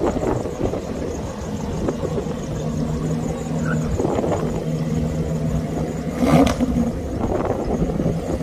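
Car engine running steadily, with a brief louder burst a little past six seconds in.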